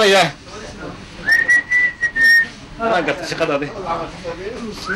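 A person whistling: a held, nearly level note that slides up into pitch about a second in and lasts about a second, with a brief break, and a second whistled note starting at the very end. Short stretches of a man's voice come before and between the whistles.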